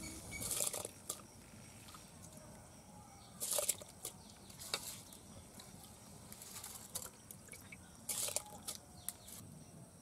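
Handfuls of wet, washed rice dropped into a pot of water, making several short splashes.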